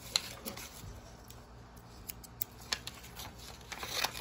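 A sheet of bond paper being handled and shifted on a wooden desk: a few short sharp taps, then a brief rustle near the end.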